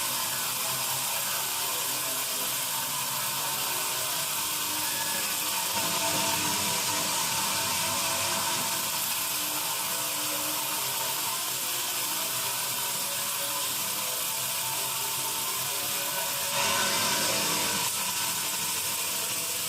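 Sawmill bandsaw running through a teak log: a steady mechanical whine and hiss that grows louder for a moment near the end.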